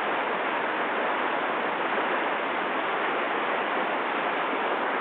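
River whitewater rushing steadily: the even hiss of rapids.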